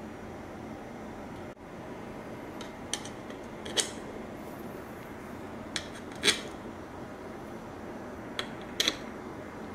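Small hard clicks of gimbal mounting hardware tapping against the dark mounting plate as parts are fitted by hand. The clicks come in three pairs, each a light tick then a sharper click, over a steady hiss.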